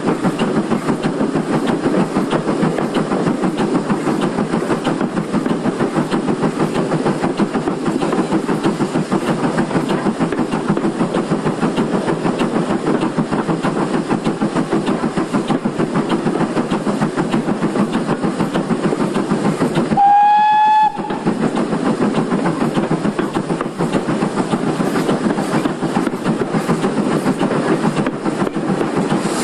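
GWR 2800-class 2-8-0 steam locomotive No. 2857 running along the line, heard from the front of the engine as a steady, dense running noise. About two-thirds of the way in, its steam whistle sounds once, a single pitched note lasting about a second.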